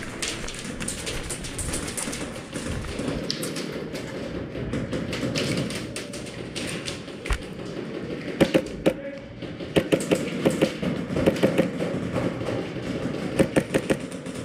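Airsoft guns firing in an indoor arena: strings of sharp clicking shots, starting about eight seconds in and coming again in clusters near the end, over a steady background clatter of players moving.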